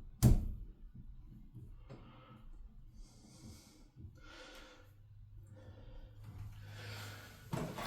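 Handling noise while a toilet's water supply line is being fitted. There is a sharp knock about a quarter second in, then several short, soft hissy noises, and another knock near the end.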